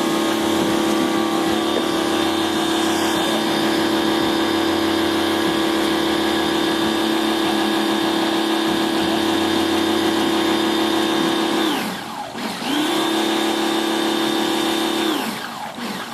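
A small motor running at a steady high pitch, spinning down about twelve seconds in, starting again a second later and winding back up to speed, then spinning down again near the end.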